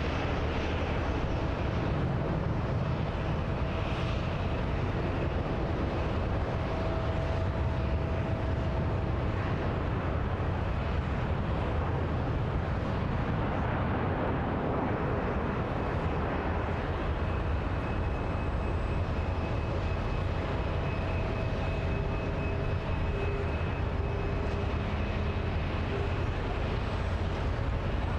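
Jet engines of an Airbus A380 airliner running as it rolls down the runway after landing: a steady, deep noise with a few faint, steady whining tones over it.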